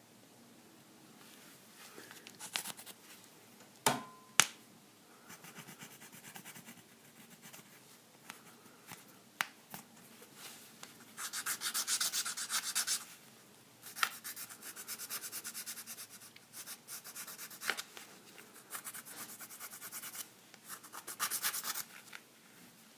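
Wooden paddle pop stick scraping heat-softened paint off a brass padlock, in bursts of quick scratchy strokes, with a few sharp knocks.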